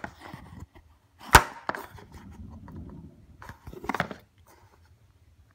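Sharp clicks and knocks of a coin presentation box being handled and opened on a wooden floor. One loud snap comes about a second in, then lighter clicks, a soft rustle, and a cluster of clicks just before the end.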